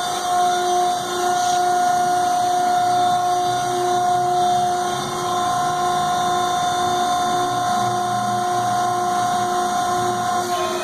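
Summit F66 horizontal baler's electric motor and hydraulic pump running with a steady, high-pitched whine.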